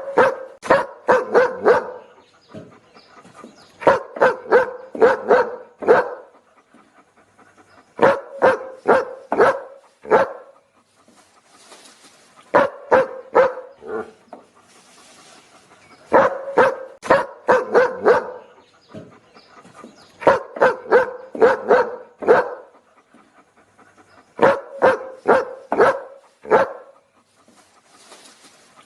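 A dog barking in quick volleys of about five or six sharp barks, a volley roughly every four seconds with short pauses between.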